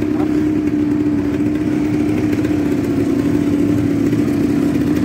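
Quad bike (ATV) engine idling at a steady pitch.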